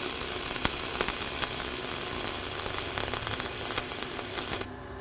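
Flux-core wire-feed arc welding a vertical uphill cap bead: a steady crackling hiss with sharp spatter pops, which cuts off abruptly near the end as the arc is broken.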